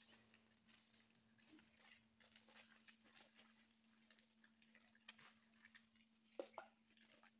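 Near silence: room tone with a faint steady hum and scattered faint small clicks, a slightly stronger pair about six seconds in.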